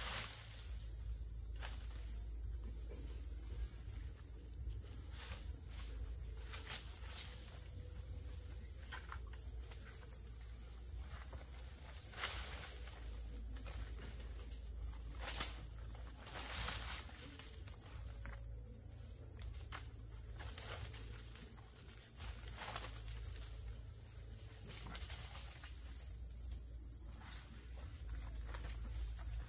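Insects stridulating in one steady, unbroken high-pitched drone, over a low rumble, with scattered sharp knocks or taps.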